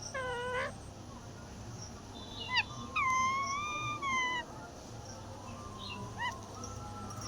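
Parrot calling: a few separate whistled calls, a short one at the start, a quick rising chirp, then a longer held call, and a short chirp near the end.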